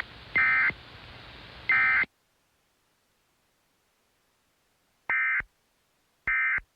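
Emergency Alert System end-of-message code: short, harsh digital SAME data bursts, each about a third of a second long. Two bursts come about a second apart in the first two seconds over a faint hiss. Then there is dead silence, and two more bursts follow about five and six seconds in.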